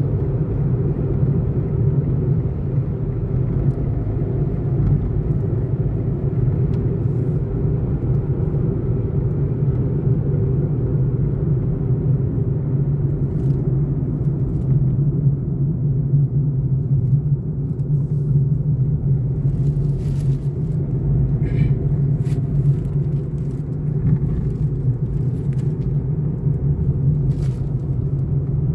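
Steady engine and tyre rumble of a small car driving along a road, heard from inside the cabin.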